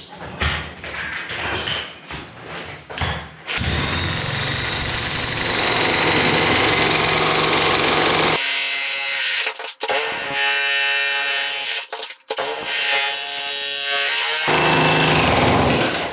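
A few separate knocks, then an electric demolition hammer starts about three and a half seconds in, chiselling hard 40-year-old concrete foundation. It runs loud and steady, cuts out briefly twice, and stops shortly before the end.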